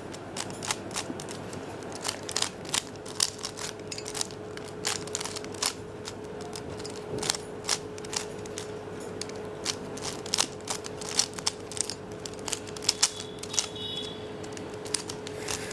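A 3x3 Rubik's cube's plastic layers being turned in quick succession, giving an irregular run of sharp clicks and clacks, with a steady faint hum underneath.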